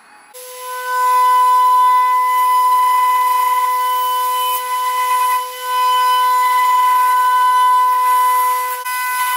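High-speed router spindle of a Lee Hyun multi-wood machine whining at a steady pitch as its bit cuts slots into a timber. It starts about a third of a second in and dips briefly just past halfway.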